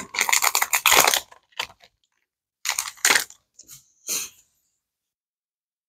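Trading-card booster pack wrapper being torn open and crinkled: a dense crackling run in the first second, then a few short crinkles until about four seconds in.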